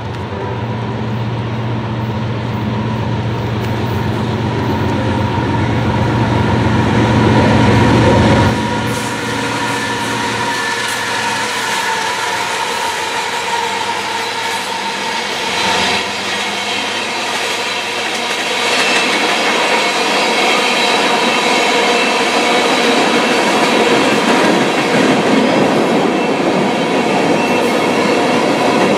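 A diesel-hauled freight train passes. The locomotives' engine drone builds and then falls away sharply about eight seconds in. A long string of tank cars follows, steel wheels rumbling on the rails with a steady high squeal.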